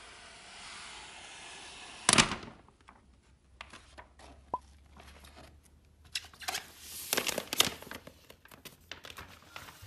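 Thin clear plastic protective film peeled off the back of an iPad: a steady hiss of the film pulling away for about two seconds, then one loud crackle, followed by scattered crinkles of the loose film being handled.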